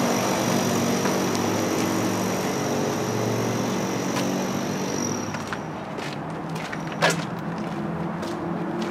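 Steady drone of an engine running, with a thin high whine that stops about five and a half seconds in. A single sharp click comes about seven seconds in.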